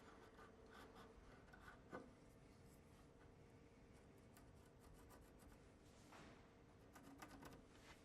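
Near silence with faint scratching and a few light clicks: a marking gauge being set and its pin scribed across the edge of a wooden door.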